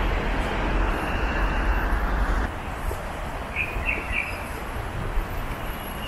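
City street ambience: steady traffic noise with a heavy low rumble that drops away suddenly about two and a half seconds in, and a few short bird chirps soon after.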